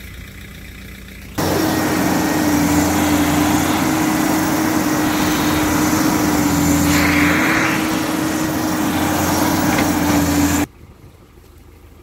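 New Holland LS170 skid steer's engine running hard with a steady, even drone while the loader lifts a round bale into a ring feeder. It cuts in sharply about a second and a half in and drops off suddenly near the end, leaving a quieter engine hum.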